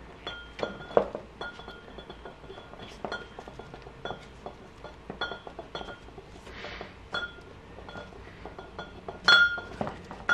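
Light clicks and clinks as a rubber fork seal and the steel fork inner tube are handled, the tube giving a short metallic ring after each knock. A louder clink with a longer ring comes near the end.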